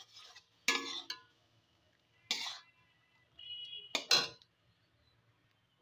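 Metal spatula scraping and knocking against the pan in a few short strokes, a second or two apart, while stirring thick, foaming sugar syrup as it reduces. A brief ringing clink comes about three and a half seconds in.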